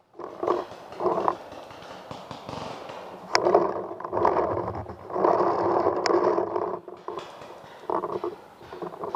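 Scraping and rubbing handling noise from a barrel-mounted camera as the paintball marker is moved and braced against a rotting log, in repeated bouts, the longest about a second and a half. Two short sharp clicks cut through, a few seconds apart.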